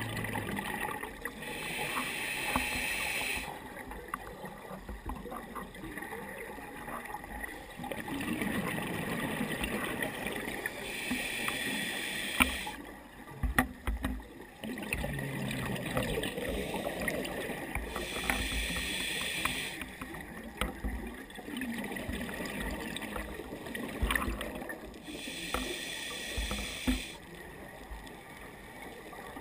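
Scuba diver breathing underwater through a regulator: four bursts of bubbling exhalation, each about two seconds long and roughly seven seconds apart, with quieter water noise between breaths.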